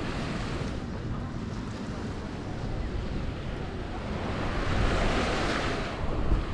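Waves washing onto a sandy beach, one swelling louder about five seconds in, with wind rumbling on the microphone.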